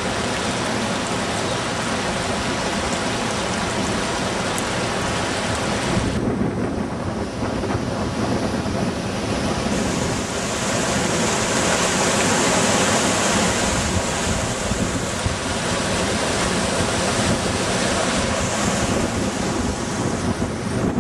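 Whitewater rushing steadily down a cascade between lagoons, running high with the overflow after heavy winter rains. From about six seconds in, wind buffets the microphone over the water noise.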